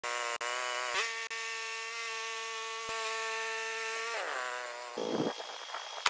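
Woodland Mills HM130MAX portable bandsaw sawmill running at a steady pitch while sawing an old wooden pole. About four seconds in, it winds down with a falling pitch, and a short clatter of handling follows near the end.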